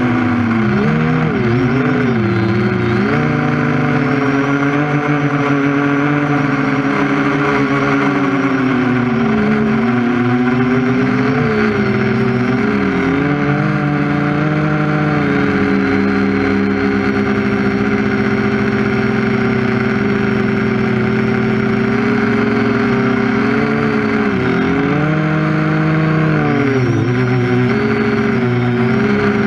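TBS Discovery quadcopter's brushless motors and propellers whirring, close to the onboard camera, the pitch swinging up and down with throttle changes and holding steadier through the middle.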